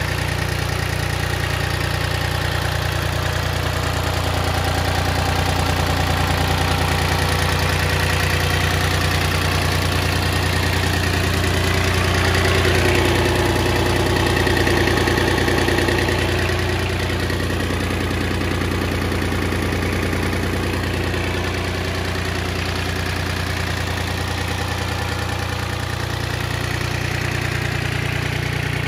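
ISEKI 155 compact tractor's three-cylinder diesel engine idling steadily.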